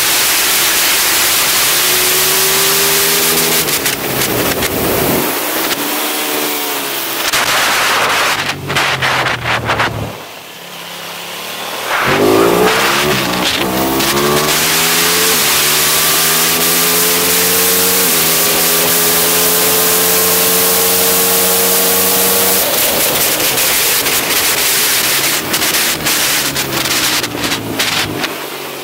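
Aprilia SXV 550 supermoto's V-twin engine through a full titanium Akrapovič exhaust, heard onboard at speed. The revs fall away twice as the throttle closes. Then it pulls hard, revs climbing and stepping down at a couple of quick, quickshifter upshifts, over steady wind rush.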